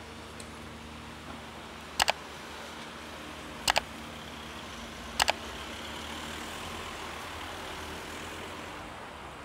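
City street traffic: a steady engine hum and road noise, swelling as a vehicle passes in the second half. Three loud, sharp double clicks come about a second and a half apart.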